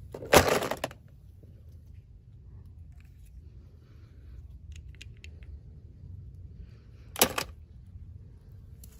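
Toy packaging being handled during an unboxing: two short, sharp bursts of crinkling or snapping, one just under a second in and a shorter one near the end, with a few faint small clicks between.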